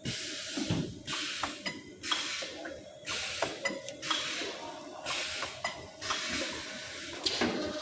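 Automatic stainless steel wire looping and welding machine running through its cycle: a short hiss about once a second, with sharp metallic clicks between them over a steady hum.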